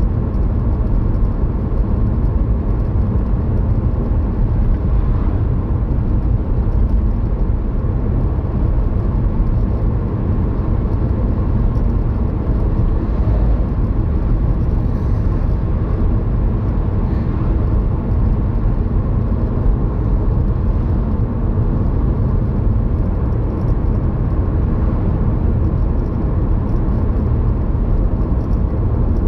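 Steady car road and engine noise from inside a moving car.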